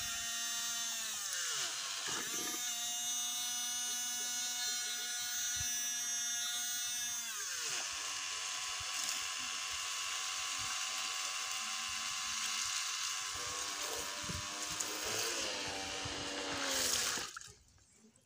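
Homemade mini water pump's 12 V D775 DC motor whining at high speed. Its pitch drops twice as the impeller is lowered into the water and takes load, wavers later, and the motor cuts off suddenly near the end.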